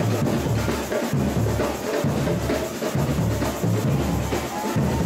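Samba percussion playing a driving rhythm: deep bass drums beating under a dense layer of snare and higher clicking percussion.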